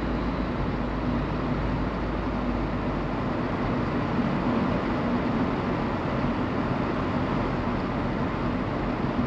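Steady road noise of a moving car heard from inside the cabin: tyre noise on the road surface with engine hum.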